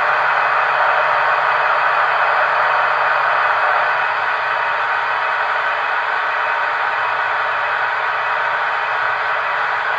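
Märklin H0 model electric locomotives, an SBB Re 460 and a BLS Re 465, running slowly side by side: a steady whirring hiss, with a low hum that fades about four seconds in.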